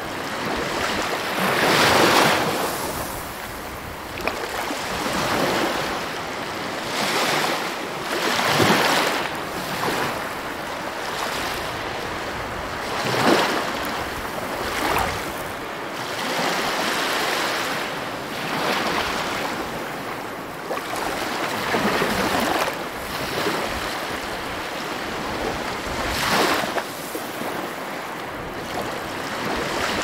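Ocean surf: waves breaking and washing in one after another, each surge swelling and fading every two to four seconds.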